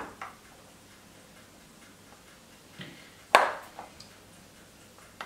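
A knife scraping butter out of a plastic container, the blade giving a few sharp clicks and taps on the plastic; the loudest tap is about three and a half seconds in.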